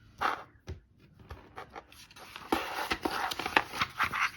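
Paper rustling and crinkling as a folded paper benefits pamphlet is handled and leafed through: a short rustle at the start, then a denser run of crinkles and paper clicks in the second half.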